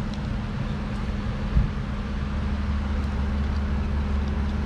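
Jeep engine running steadily at low revs at rock-crawling pace, its drone deepening slightly about two seconds in. A single sharp thump comes about one and a half seconds in.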